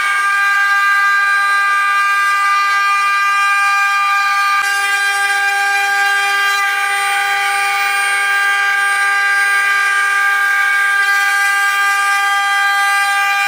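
The spindle motors of a 12-head 4-axis CNC wood router running while carving wooden spindles: a steady whine made of several constant pitches over a light hiss of cutting.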